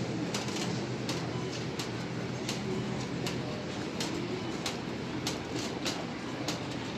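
Shopping cart rolling over a concrete store floor, its wheels and wire basket giving off a string of sharp, irregular rattling clicks over a steady low store hum.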